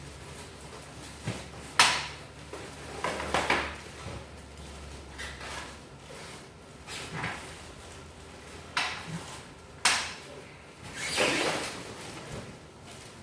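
Bandsaw base parts and hardware being handled and set down: two sharp knocks, about two seconds in and near ten seconds, with smaller clatters and shuffling between.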